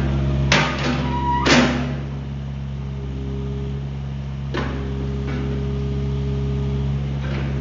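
Kubota KX057-4 mini excavator's four-cylinder diesel running steadily while the hydraulics work the boom and bucket, a higher hydraulic tone coming and going over the engine. Sharp metal clunks from the bucket and arm linkage, several in the first two seconds and two more later.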